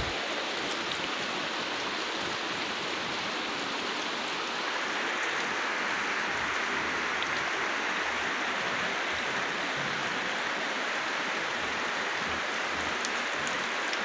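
Steady rain falling on palm trees and dense foliage, a continuous hiss that grows a little louder about four and a half seconds in.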